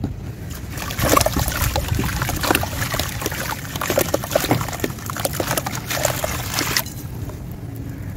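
A sand-cement chunk crumbled by hand into a plastic tub of water: a dense wet crackling and crumbling, with bits splashing and trickling into the water. It stops about seven seconds in.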